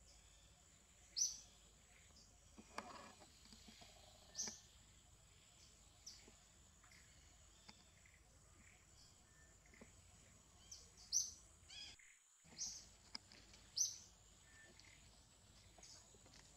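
Birds chirping in short, high calls every second or two over faint outdoor background.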